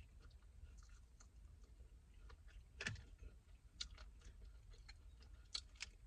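Faint eating sounds: a few scattered sharp clicks and small ticks, the clearest about three seconds in, with more a second later and near the end.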